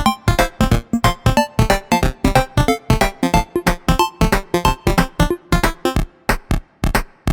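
Background electronic music with a fast, steady drum-machine beat and synthesizer notes; the melody drops out about six seconds in, leaving the beat.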